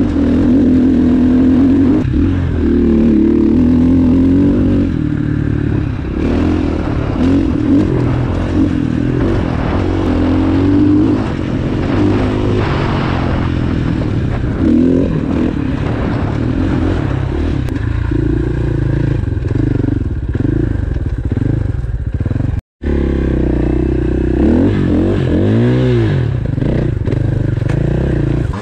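Dirt bike engine running under load on a singletrack trail, its pitch rising and falling with the throttle. The sound cuts out for a moment about 23 seconds in.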